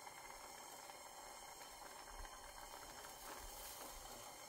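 Faint, steady hiss of a hand-held gas torch flame heating a steel bit cheek for soft soldering.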